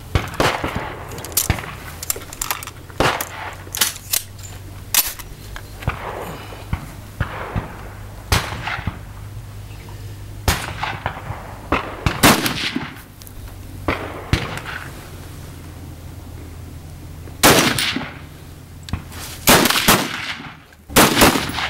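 Rifle fire from several shooters on a highpower firing line: single shots going off at irregular intervals, each a sharp crack with an echoing tail. Some are closer and louder, and the loudest come in the last few seconds.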